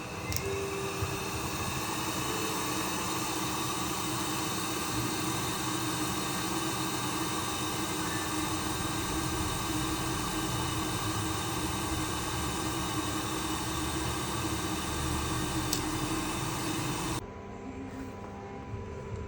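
Steady hiss of a hot air rework station blowing, as used to desolder the chips on a logic board. It cuts off abruptly near the end.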